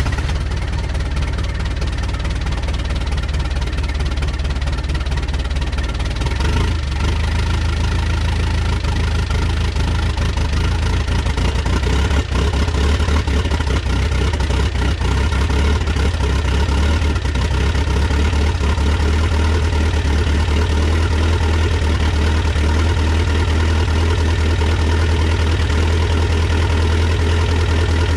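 Mitsubishi 4D55T four-cylinder turbodiesel idling steadily just after a cold start, running rough and misfiring: the owner puts it down to air in the fuel lines from slightly leaking injectors.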